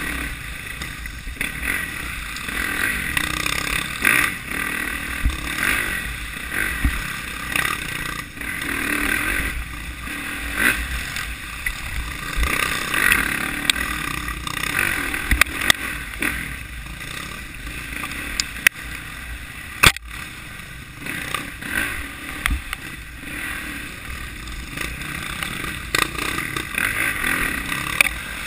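Dirt bike engine revving up and down as it rides a rough wooded trail, heard close from a camera mounted on the bike. Sharp knocks from the bike jolting over the ground come through now and then, the loudest about two thirds of the way in.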